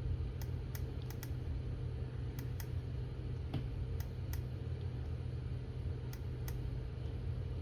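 Nitecore EDC23 flashlight's push button being clicked again and again, often in quick pairs, over a steady low hum. The clicks come from testing a button that does not reliably switch the light on.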